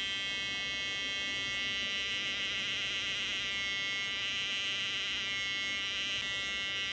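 Small speaker driven by a 555 timer oscillator giving a steady buzzing tone, lowered in pitch because the circuit is running on three D batteries instead of four. The tone wavers in several short stretches.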